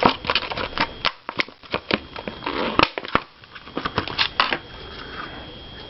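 Handling of a clear hard-plastic iPod case: an irregular run of sharp clicks and taps with short bursts of rustling.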